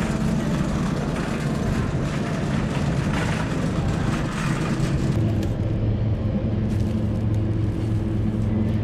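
A car driving, heard as a steady low engine hum with tyre and road noise. The higher hiss drops away about five seconds in while the hum carries on.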